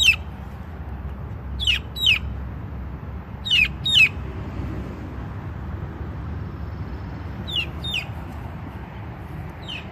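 Young chickens peeping: short, high calls that fall in pitch, mostly in pairs a few seconds apart, over a steady low rumble.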